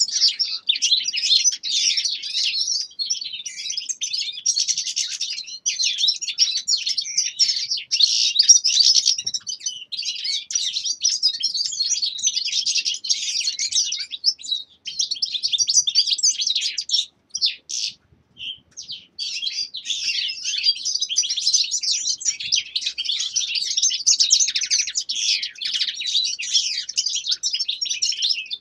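Caged finches, among them European goldfinches, singing a dense, rapid, continuous twittering song, with a short break a little past halfway.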